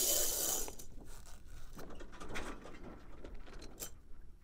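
Self-tacking jib gear of a sailing yacht during a tack: a loud rush of noise over the first half second or so, then scattered clicks, rattles and rustling as the sheet block and car work along the deck track and the sail comes across.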